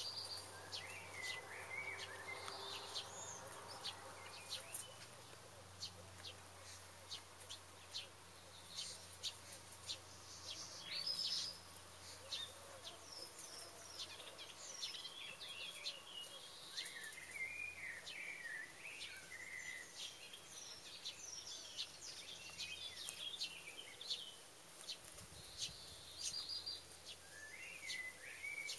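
Faint wild songbirds chirping on and off in the trees, loudest about a second in and from about eleven to twenty seconds in, over scattered light clicks and a low steady background hum.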